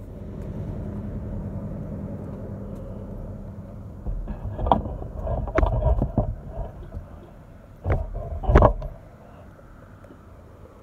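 A golf cart's motor running with a steady low hum for the first few seconds, then gusty wind buffeting the microphone, with a few sharp knocks.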